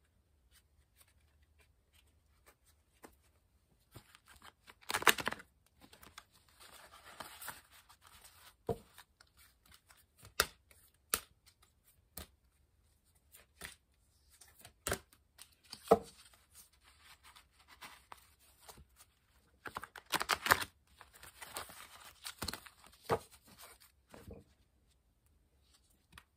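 A deck of oracle cards being shuffled by hand: irregular bursts of cards sliding and rustling against each other, with sharp taps between, loudest about five seconds in and around twenty seconds in.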